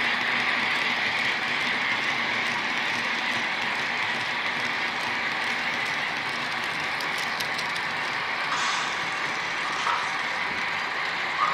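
Märklin model locomotive from the 1970s running along the track: a steady mechanical whirr of motor and gearing, with a few light clicks about seven seconds in.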